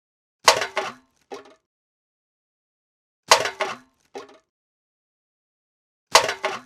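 An empty can thrown away into a bin, clattering as it lands. It happens three times, about three seconds apart, and each landing is followed a moment later by a smaller clink as the can settles.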